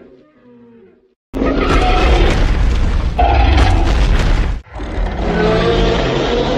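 Loud giant-monster fight sound effects. A deep booming rumble mixed with creature roars starts suddenly after a moment of silence, breaks off briefly about three seconds later, then resumes.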